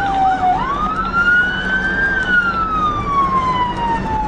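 Police siren on a slow wail: it climbs in pitch for about a second and a half, then falls slowly for the rest of the time, over steady engine and road noise. At the very start a second, fast warbling siren (yelp) cuts off.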